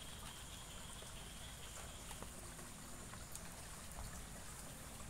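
Faint wet-weather ambience: scattered drips and light rain ticking over a steady hiss, with a thin high tone in the first two seconds.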